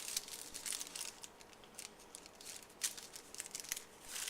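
Thin sheets of phyllo dough rustling and crackling as they are handled and laid into a pan, in a run of irregular faint crisp crackles.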